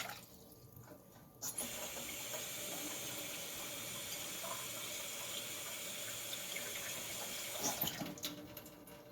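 Kitchen tap running cold water, starting about a second and a half in as a steady splashing hiss and shutting off about eight seconds in, with a few small knocks as it stops.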